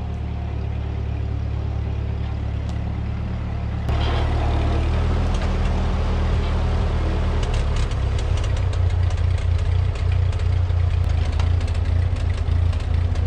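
1946 Ford 2N tractor's four-cylinder flathead engine running steadily as the tractor is driven up close, its head gasket newly replaced. The engine gets louder about four seconds in as it nears.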